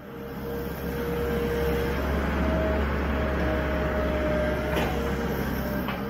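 Farm machinery engine running steadily with a low rumble and a faint whine, growing louder over the first second.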